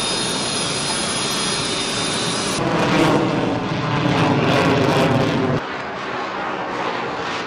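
F-22 Raptor jet engine noise: a steady rush with a thin high whine, cut about two and a half seconds in to louder, fuller engine noise of the jet in flight, with another cut near six seconds.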